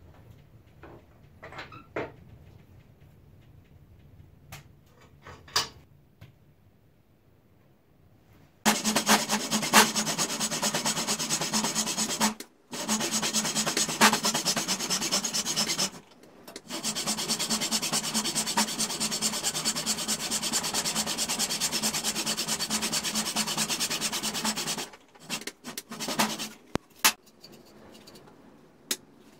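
Sandpaper rubbed rapidly back and forth along a beech hammer handle clamped in a vise, a steady scraping that stops briefly twice. A few light knocks come before it starts and after it ends.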